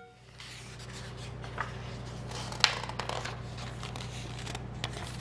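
Paper pages of a coloring pad being handled and turned: light rustling with a few soft clicks, over a low steady hum.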